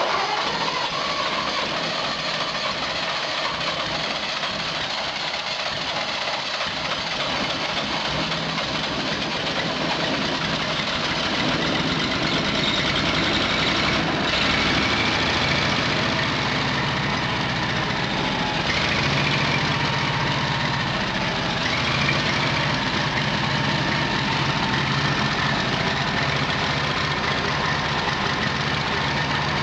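Wisconsin air-cooled engine of an old Bush Beaver wood chipper running steadily while still cold, getting a little louder about twelve seconds in.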